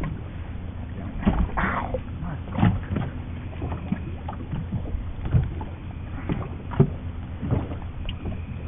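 A caught catfish being handled and unhooked by hand: irregular knocks and thumps over a steady low rumble.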